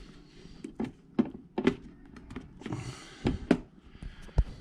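Several sharp plastic clicks and knocks as the SATA data and power connectors are worked loose and pulled off a hard drive, with brief rustling as the drive is handled.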